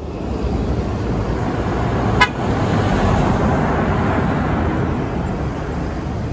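Heavy box truck passing close, its engine and tyres making a steady road noise, with one brief horn toot about two seconds in.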